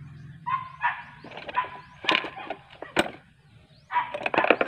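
A dog barking in several bursts, loudest near the end, with a single sharp click about three seconds in.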